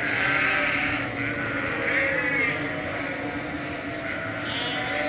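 Sheep bleating, about three calls a couple of seconds apart.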